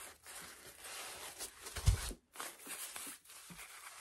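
Thin plastic tablecloth strips on a wreath rustling and crinkling as hands press and fluff them, with one dull thump about two seconds in.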